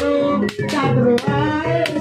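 Live folk music accompanying a dawangan (barongan) performance: held melodic notes with several sharp drum strokes.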